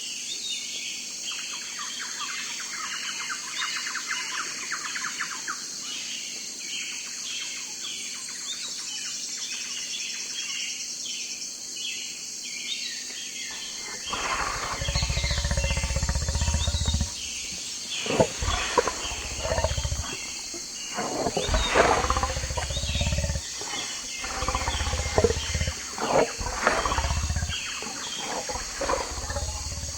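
Small birds chirping over a steady insect hiss, then from about halfway a big cat growling and roaring in repeated low bouts, each a second or two long.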